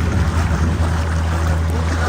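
Motorboat engine running steadily at cruising speed with a low hum, over the rush of water along the hull and wind noise.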